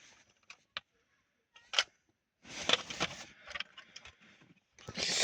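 Plastic smoke alarm being handled: scattered clicks, one sharp click about two seconds in, and rustling, then about a second of hissing noise near the end.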